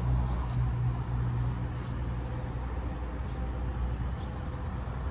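Steady low hum of a car engine running, over a wash of outdoor traffic noise; the hum weakens about halfway through.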